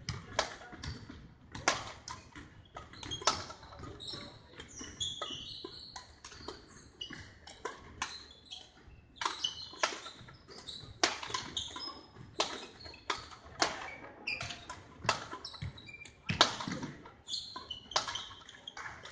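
Badminton rackets striking shuttlecocks in rallies, sharp cracks about once a second at uneven spacing, mixed with short high squeaks of court shoes on the wooden floor.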